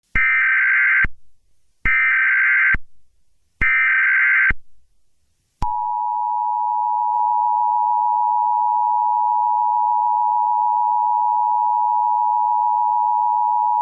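Emergency Alert System tones: three one-second bursts of buzzing SAME header data, then the steady two-tone EAS attention signal starting about five and a half seconds in.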